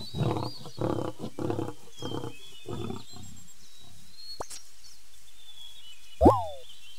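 Lion roaring, its call tailing off into a run of grunts, about eight in three seconds and getting fainter. Near the end comes a short sound effect whose pitch rises and then falls.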